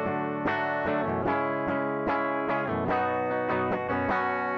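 Clean electric guitar strumming chords in a steady rhythm, about two strums a second, the recorded track played back with the strums evened out under compression.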